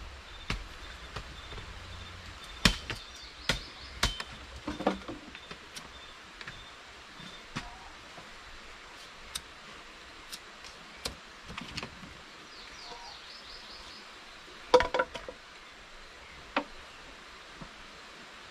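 Dry sticks and twigs being handled and broken while a fire is laid: scattered sharp clicks and cracks, loudest about three, four and fifteen seconds in. A faint high repeated chirp comes and goes in the background.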